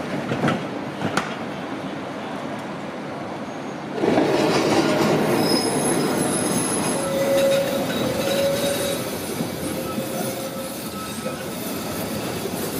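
Modern articulated low-floor electric tram running on street track; about four seconds in the sound jumps louder as its wheels squeal in thin high tones on a curve. Before that, two sharp knocks in the first second and a half over a lower rumble.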